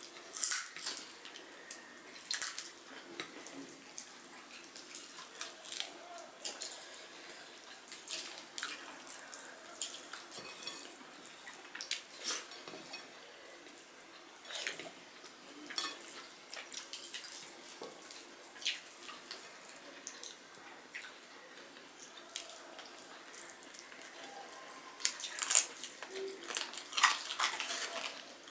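Close-up wet eating sounds of people eating rice and curry by hand: chewing and lip smacks as irregular small wet clicks, busiest near the end.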